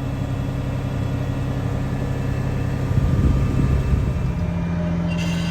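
Heavy diesel engine running steadily, its pitch rising to a higher, steady speed about four seconds in.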